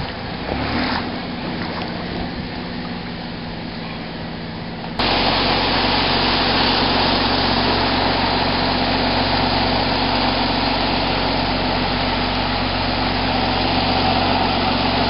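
A vehicle engine running steadily in floodwater under a steady rushing noise; about five seconds in, the sound abruptly becomes much louder and fuller and stays that way.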